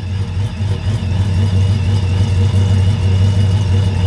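A modified Ram pickup's Hemi V8 idling, loud and steady, with a thin high whine running over the exhaust note.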